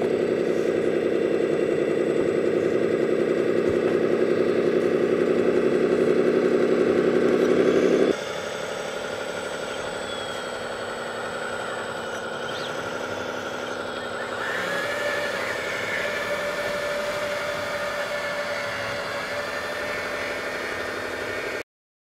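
Radio-controlled Caterpillar D10T scale model bulldozer running steadily as it pushes soil, with a loud engine-like drone for about the first eight seconds. After a cut it drops to a quieter steady running sound, which cuts off just before the end.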